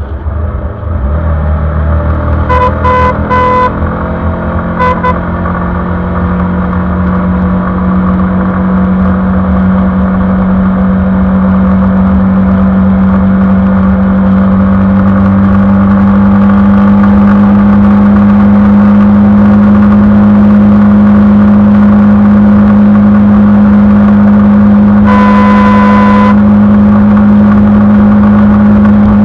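Suzuki Gixxer 155's stock single-cylinder engine and exhaust under way, pulling up in revs and then holding a steady cruise. Horn beeps sound several times a few seconds in, and a longer horn blast about 25 seconds in.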